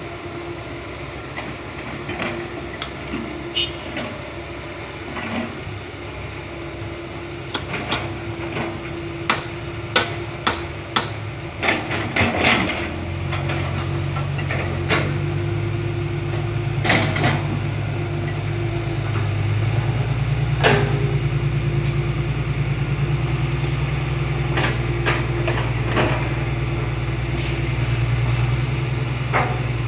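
Komatsu PC160 hydraulic excavator running while it works, with a series of sharp knocks and clanks from the bucket and soil. About halfway through, a heavier low engine drone comes in and holds steady.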